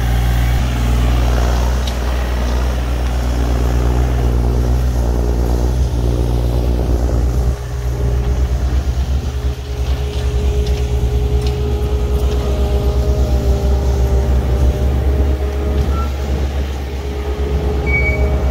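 Diesel engines of compact construction equipment (skid steer and mini excavator) running under load while backfilling, a steady low hum that turns to a rapid throb about halfway through, with a hydraulic-type whine. A reversing alarm starts beeping near the end.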